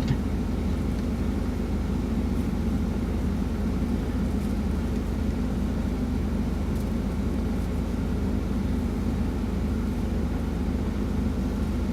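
Steady low drone of a Peterbilt semi-truck idling, heard from inside the cab.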